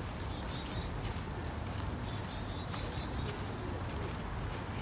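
Insects, crickets or similar, trilling steadily at a high pitch, with a low rumble underneath.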